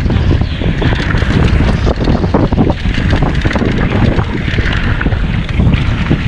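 Wind buffeting the microphone of a mountain bike's onboard camera, with tyres running over dry, loose dirt and frequent knocks and rattles from the bike over bumps during a fast descent.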